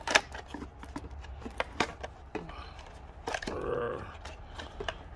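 Packaging of a pair of wireless earbuds being handled and opened by hand: a string of quick clicks, taps and scrapes of cardboard and plastic.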